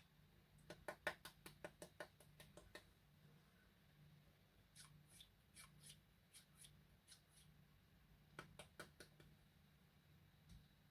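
Faint runs of quick clicks and taps from hands handling candy packaging, in three clusters: a dense run about a second in, lighter high ticks mid-way, and a short run near the end.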